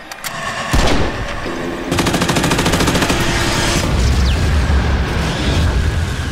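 Cinematic sound effects: a single heavy hit about a second in, then a rapid burst of automatic gunfire lasting nearly two seconds, followed by a deep rumbling boom.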